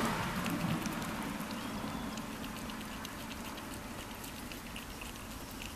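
A mother cat licking and cleaning her newborn kitten: irregular quick, wet clicks and smacks from her tongue and mouth.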